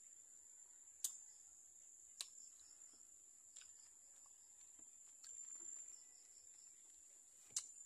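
Faint steady high-pitched insect drone, with a few short sharp clicks from chewing and handling jackfruit pulp. The loudest clicks come about a second in and near the end.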